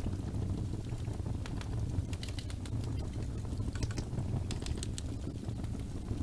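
Wood fire in a fireplace crackling: irregular sharp pops and snaps over a steady low rumble of the flames, with small clusters of crackles about two seconds in and again around four to five seconds in.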